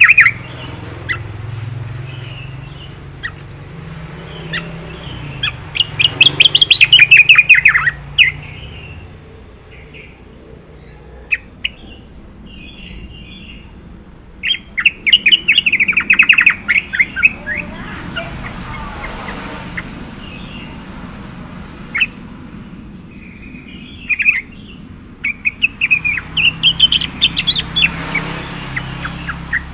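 Yellow-vented bulbul singing: three loud bursts of rapid chirping phrases, roughly ten seconds apart, with scattered single chirps between them.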